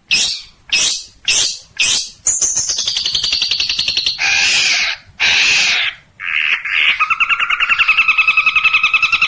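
Long-tailed shrike (cendet) singing a varied, harsh song: four short scratchy strokes, a fast falling trill, two rasping notes, then a rapid rattling trill on two pitches near the end.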